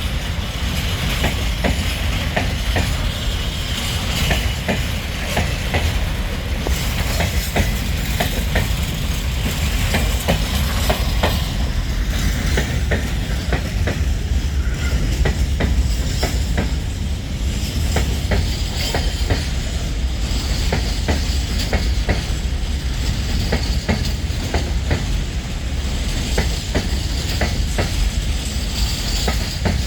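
Freight train of Eas open wagons running on the line: a steady low rumble with frequent short clicks and clatter from the wheels on the rails.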